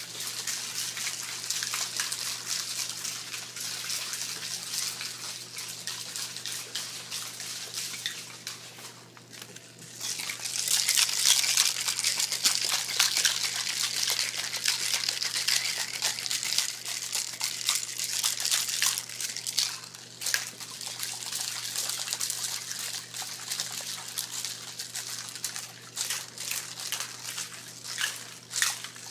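Melting ice and salt water sloshing and rattling inside a hand-shaken Ice Cream Magic ice cream maker as it is shaken nonstop. The sloshing lets up briefly about nine seconds in, then comes back louder.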